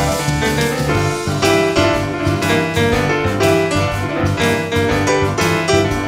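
Nord Stage 2 stage keyboard played with a piano sound: a busy run of quick right-hand notes over repeating left-hand bass notes.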